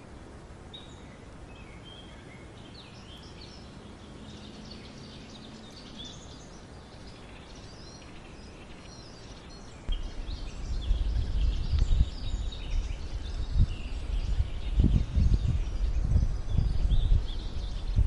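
Several small birds chirping and trilling in quick high notes. About halfway through, a loud, gusty low rumble sets in and becomes the loudest sound.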